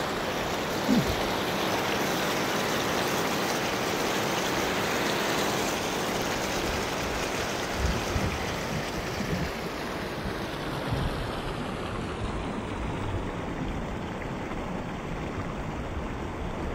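Shallow river rushing steadily over stones.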